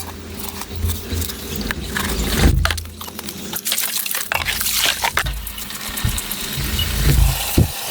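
Water splashing, with scattered knocks and clinks.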